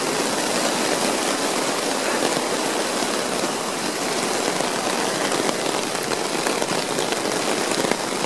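Heavy thunder-shower rain falling on an Argon tarp, heard from underneath the fabric: a dense, steady hiss of drops.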